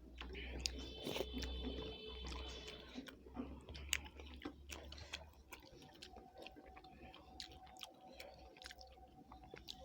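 Chewing and eating sounds close to the microphone, with many small irregular clicks, under a low hum that fades about six seconds in.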